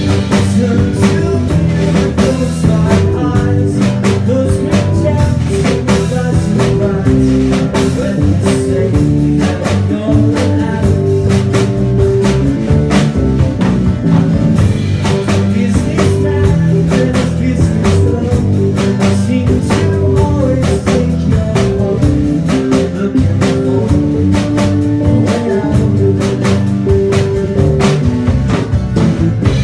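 Live rock band playing, with guitar, bass and a drum kit keeping a steady beat under held, shifting chords.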